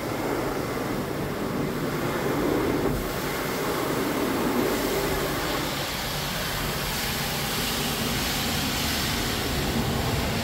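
Automatic car wash heard from inside the car's cabin: spinning brushes scrubbing over the windscreen and body, with water spraying onto the glass, making a steady rushing noise. It turns from a lower rumble to a higher hiss about halfway through.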